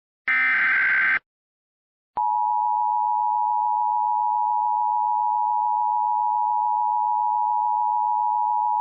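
Emergency Alert System tones. First the last of the three screechy digital header bursts, lasting about a second. Then, after a short pause, the steady two-tone attention signal starts about two seconds in and holds without a break.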